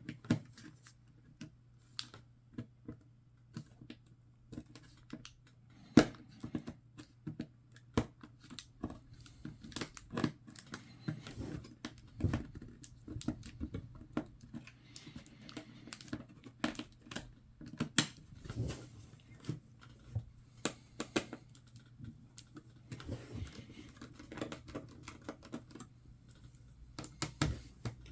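Irregular clicks, taps and light scrapes of small tools and plastic and metal parts being handled while taking a laptop's internals apart: unplugging the battery and working the CPU heatsink loose. A faint steady low hum runs underneath.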